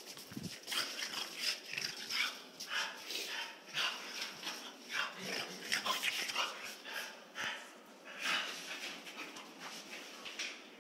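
French bulldog in excited play, making a quick run of short noises, a few a second.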